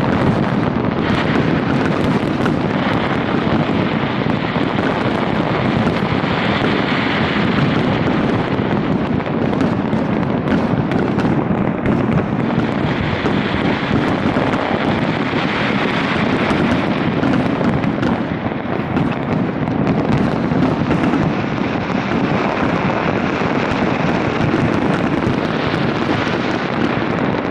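Large fireworks display in full barrage: many explosions and crackles overlapping into one continuous, unbroken wall of sound.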